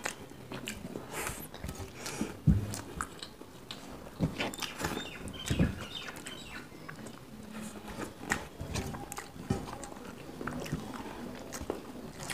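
Two people chewing food close to the microphone while eating rice by hand from steel plates, with many irregular small clicks from their mouths and fingers. Two louder low knocks come about two and a half and five and a half seconds in.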